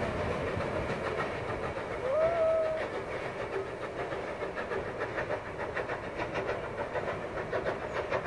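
Narrow-gauge steam train running away on the rails, its carriages rumbling. About two seconds in there is one short steam whistle blast that slides up in pitch and then holds. Near the end the wheels click over the rail joints.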